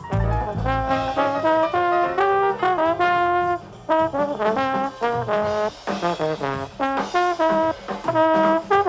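Trombone playing a quick, jazzy melodic line of short and held notes.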